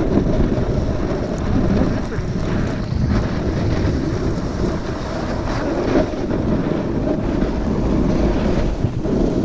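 Wind rushing over the camera microphone while riding fast down a snow slope, a steady rumbling buffet that swells and eases.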